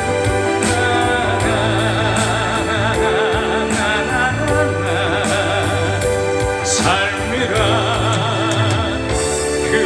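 Amplified live-stage music from a slow song, with a steady beat and a melody line held with a wavering vibrato.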